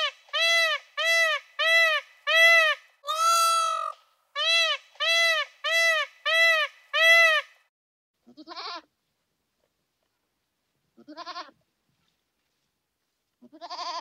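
Animal calls: a quick run of about a dozen short, evenly spaced high calls, each rising and falling in pitch, one of them longer. Then three shorter, lower, quavering bleat-like calls a few seconds apart.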